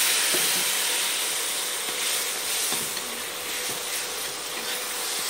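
Water hitting hot oil and masala in an iron kadai: a loud steaming sizzle that slowly dies down, with a few light knocks.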